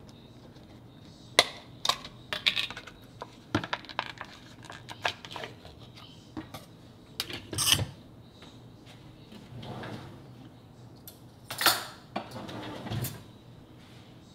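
Spoon and dishes clinking, knocking and scraping while food is spooned onto a plate, in scattered short clicks with a louder clatter about halfway through and again near the end.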